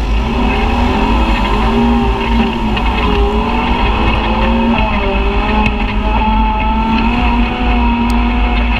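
Side-by-side UTV engine running steadily under way, its pitch drifting gently up and down with the throttle.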